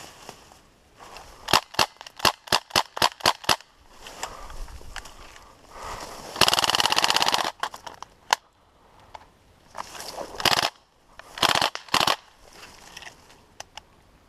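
Airsoft guns firing: a quick string of about nine single shots, then a sustained full-auto burst of over a second. Scattered single shots follow near the end.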